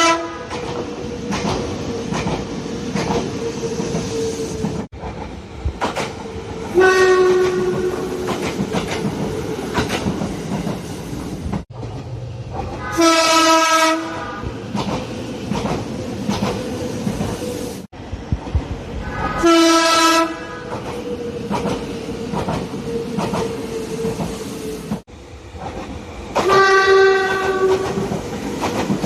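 Nagano Electric Railway express train horn sounding five times, each a single steady-pitched blast about a second long. Between the blasts the train runs with a steady hum and the clickety-clack of wheels over rail joints. The sound breaks off abruptly between blasts where separate recordings are joined.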